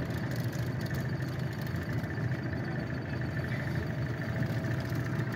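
Boat motor idling, a steady low hum.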